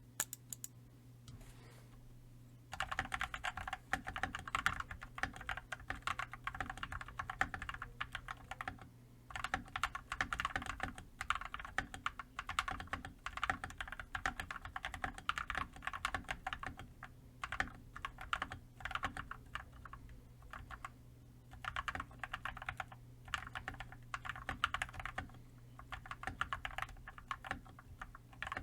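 Fast typing on a custom mechanical keyboard with lubed and filmed Gateron Red V2 linear switches and PBT keycaps: quick runs of key presses with short pauses between bursts. The typing starts about three seconds in.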